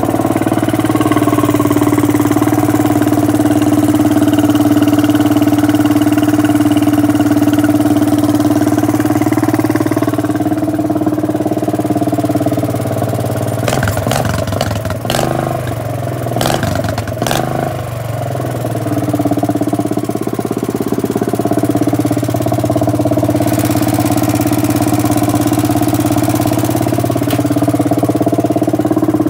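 Craftsman DLT 3000 garden tractor engine running loudly through a straight-pipe exhaust at a steady speed. About halfway through, its note dips and wavers, with a few sharp knocks, then settles back to the same steady running.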